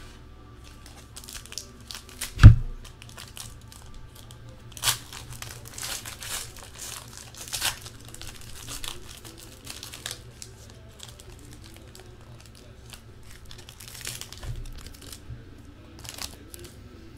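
A trading-card pack's foil wrapper being torn open and crinkled by hand, in scattered crackles. A single sharp thump a couple of seconds in is the loudest sound.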